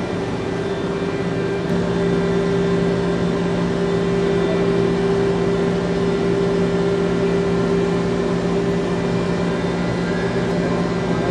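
Heavy electric machinery running with a steady hum and a few fixed tones. It gets a little louder about two seconds in.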